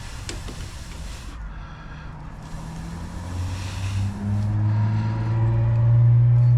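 Low, steady engine drone that swells louder about four seconds in, over two earlier stretches of breathy hiss.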